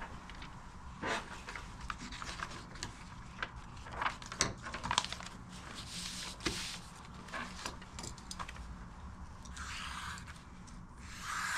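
Objects being handled and rubbed, with scattered light clicks and a few short rustling swishes.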